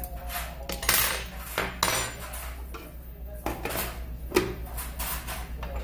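Steel spoon and chopsticks clinking against ceramic dishes: several sharp clinks, the loudest about four seconds in, over a steady low hum.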